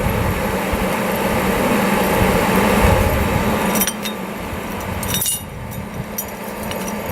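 Steady kitchen background noise with a low hum, and a few light clinks of utensils between about four and six seconds in.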